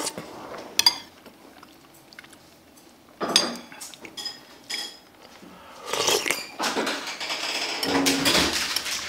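Metal spoon clinking against a ceramic soup bowl and plates: a few separate sharp clinks with a short high ring, then a busier run of clatter and scraping in the last three seconds.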